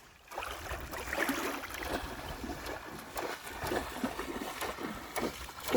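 River water splashing and trickling, in a quick irregular run of small splashes.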